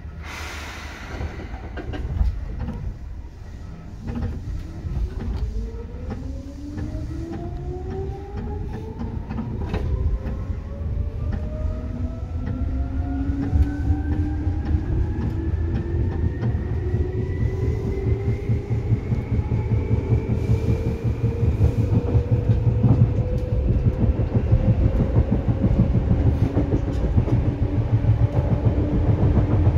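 Seibu 2000 series electric train pulling away, heard from inside the car: a burst of noise just after the start, then the whine of its field-chopper-controlled DC traction motors and gears rising steadily in pitch as it accelerates. Underneath is the low rumble and clatter of the wheels on the rails.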